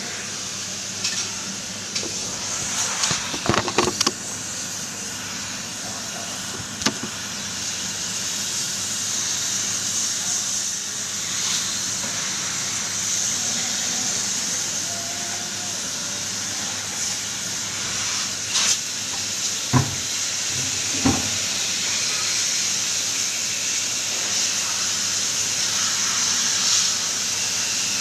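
Pressure-washer jet spraying water into the coil of a wall-mounted split air conditioner's indoor unit: a steady hiss, broken by a few short knocks and taps.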